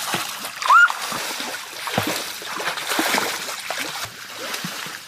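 Water splashing and sloshing in irregular bursts. About a second in comes a short, loud squeak that rises and falls.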